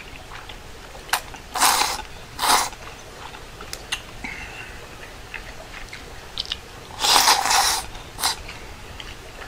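Person slurping udon noodles from a bowl: two short slurps about two seconds in and a longer slurp around seven seconds in, with small clicks between.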